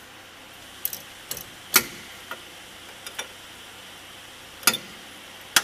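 Sharp metallic clinks, about eight spread irregularly, of a steel spanner knocking against a forklift mast's hydraulic hose fittings and frame as a fitting is undone.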